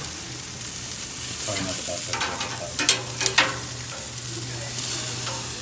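Meat sizzling on the grates of a gas grill. Metal tongs click against the grate a few times between about two and three and a half seconds in.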